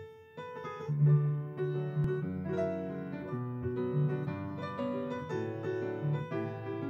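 Solo grand piano played live: a melody of struck notes over sustained low bass notes, with the music starting just before this point.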